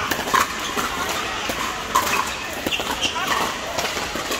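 Pickleball paddles striking plastic balls on several courts at once: irregular sharp pops, several a second, over a murmur of voices.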